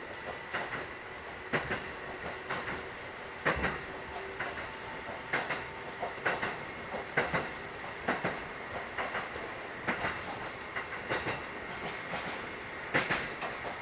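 Running sound inside a Takamatsu-Kotohira Electric Railroad 1080 series car, a former Keikyu 1000 series EMU: wheels knock over rail joints at irregular intervals of about a second, often in quick pairs, over a steady running hum with a faint high tone.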